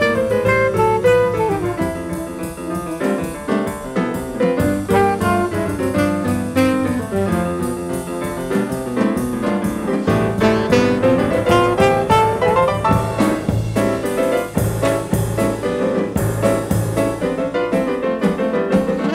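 Live jazz quartet recording: piano playing fast lines over double bass and drums, with alto saxophone in the band.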